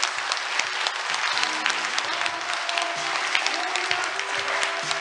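Audience applauding, a dense, even clatter of many hands clapping, with music playing underneath.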